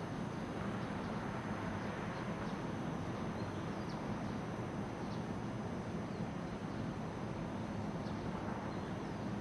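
Steady hum of distant city traffic, with faint bird chirps now and then.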